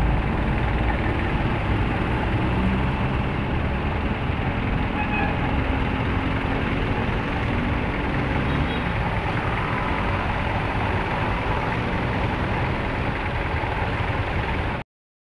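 Road traffic at a city intersection: vehicle engines and tyres making a steady rumble. It cuts off suddenly near the end.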